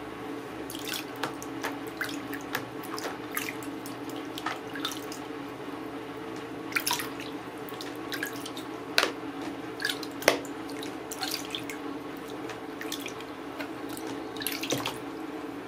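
Water splashing and dripping in short irregular spurts as a kitten's wet fur is worked by hand in a bath basin, over a steady low hum.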